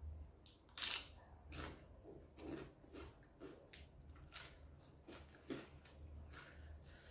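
Crunchy food being bitten and chewed close to the microphone: a string of sharp, irregular crunches, roughly one or two a second, the loudest about a second in.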